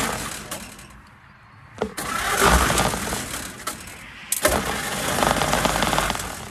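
Old Ford truck engine being cranked over by its starter, hot-wired from the battery, in two bursts that each start abruptly, the first about two seconds in and the second a couple of seconds later. It is a start attempt with a freshly fitted condenser and coil after a weak spark.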